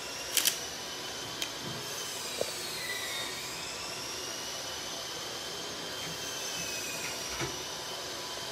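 A motor running steadily with a whirring whine whose pitch drifts slowly down and back up. A few sharp clicks sound over it, the loudest a quick double click about half a second in.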